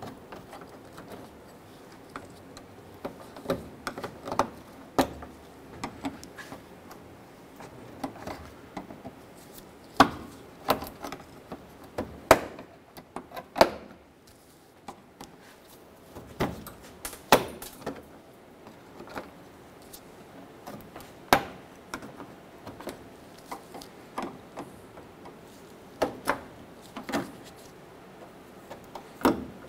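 Plastic push-pin bumper retainers being pried out with a trim tool: a series of sharp, irregular clicks and snaps as each clip pops loose, with small plastic rattles between them.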